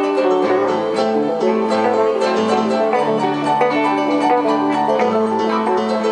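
Live instrumental jam: an electronic keyboard holding sustained chords under a picked electric guitar line, played steadily with no vocals.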